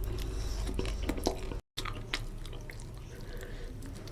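Close-up wet chewing and small mouth clicks of someone eating rice with fish curry, with a brief complete dropout of sound about a second and a half in.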